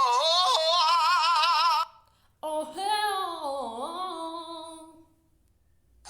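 A woman's voice singing two drawn-out notes with a strong wavering vibrato, the second sliding down in pitch, as a vocal imitation of a sound.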